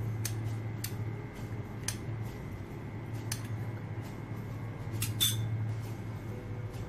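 A few light clicks and taps of a small glass of food colouring being handled over a biryani pot, with a faint ringing clink a little after five seconds in, over a low steady hum.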